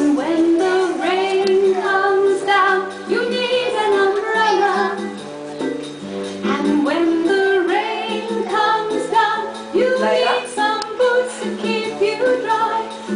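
A children's song playing, with instrumental backing and singing voices, a woman's and children's.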